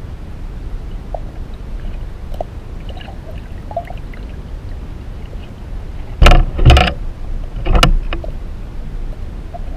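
Underwater sound heard through a diver's camera: a steady low rumble with faint scattered clicks, then three loud short noises about six to eight seconds in.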